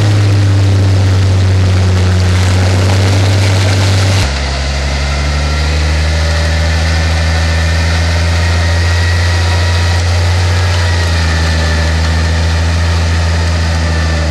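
Off-road 4x4 truck's engine idling steadily close by. About four seconds in, the engine note shifts abruptly to a lower, steady hum.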